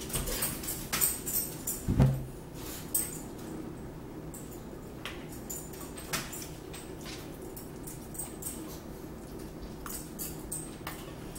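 Eating at a table: metal forks tapping and scraping on plates and foam takeout containers, with chewing and mouth sounds. The clicks are busiest in the first few seconds, with one louder knock about two seconds in, then thin out to occasional small taps.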